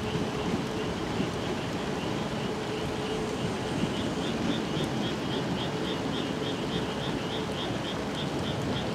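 Steady night ambience: an even rush of noise with a constant low hum, joined about four seconds in by a high, quick, evenly repeating chirping.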